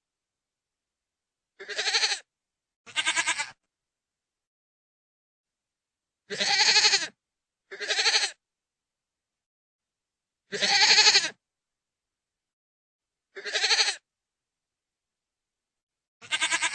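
Goat bleating: seven separate quavering bleats, each half a second to a second long, the first two and the next two coming in quick pairs, then three single calls a few seconds apart.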